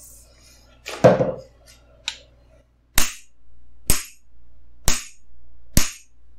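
Four sharp hammer strikes about a second apart on the end of a long steel camshaft bearing installer rod, tapping the last cam bearing in an LS engine block fully home. A duller clank comes about a second in.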